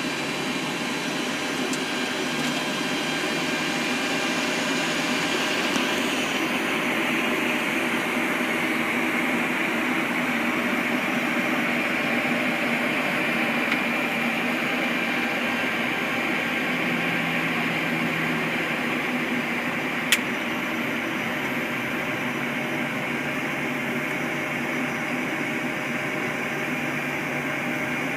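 Steady flight-deck noise of a Boeing 737-800 at taxi idle: a mix of the CFM56-7B engines idling and the cockpit air-conditioning airflow, as an even whoosh with faint steady hums. There is a single sharp click about twenty seconds in.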